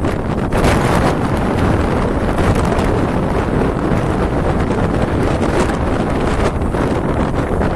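Strong pre-storm wind buffeting the microphone: a loud, steady rush of rumbling noise.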